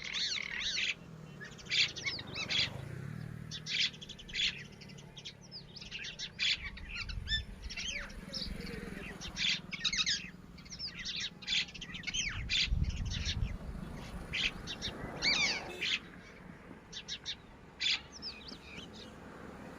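Red-wattled lapwing calling: short, sharp, high notes given in quick runs of several at a time, with brief pauses between runs.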